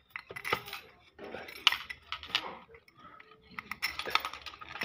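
Steel motorcycle spokes clicking and clinking against one another and against the drum hub as they are pushed one by one through the hub's spoke holes, in irregular short clusters with brief scraping.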